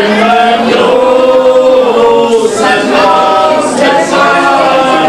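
Several voices singing a song together, with men singing into microphones that are amplified through a PA loudspeaker. The notes are held and sung steadily, with no clear instrument underneath.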